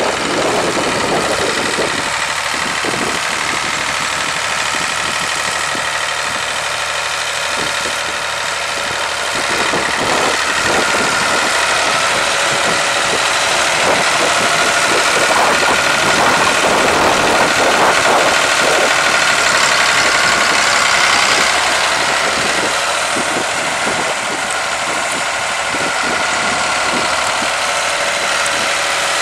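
Ford TW30 tractor's six-cylinder diesel engine running steadily as the tractor is driven, growing somewhat louder for several seconds in the middle as it comes closer.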